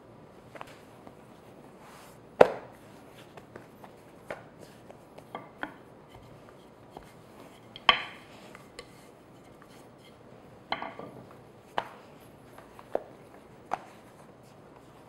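Irregular knocks and clatters of a wooden rolling pin on a granite countertop while dough is rolled out. The two loudest knocks come about two and a half and eight seconds in.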